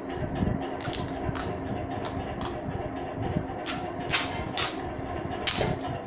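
Adhesive tape being pulled off the roll in several short rips as it is wrapped around a home-made fan's stand, over a steady low hum.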